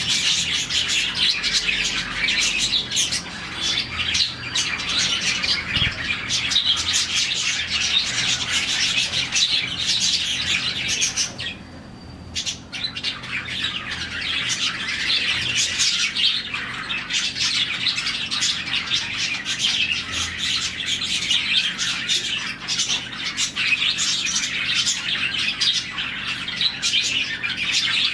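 A colony of about forty budgerigars chirping and chattering together in a dense, continuous din. About twelve seconds in, the whole flock falls almost silent for about a second, then starts up again.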